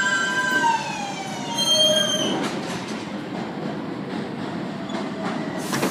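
R143 subway train's electric traction motors whining in several tones that fall in pitch as the train brakes, with a brief squeal about two seconds in. Then a steady rumble of the train, and a sharp click near the end.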